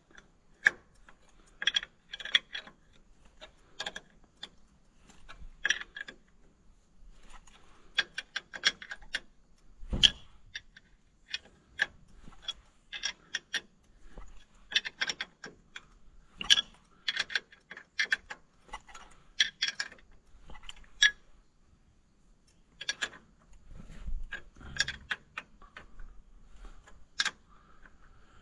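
A 3/4-inch steel wrench clinking on the bolt heads of a tractor belt-pulley housing as the bolts are tightened a bit at a time by hand. The wrench is lifted and reset on the bolt over and over, giving irregular clusters of sharp clicks, with one duller knock about ten seconds in.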